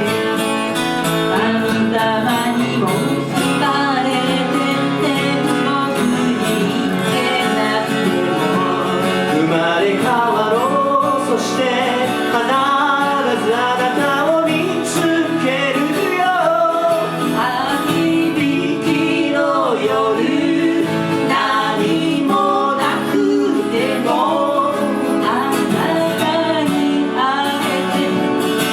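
Music: a Japanese ballad sung with guitar accompaniment, a wavering vocal melody over it.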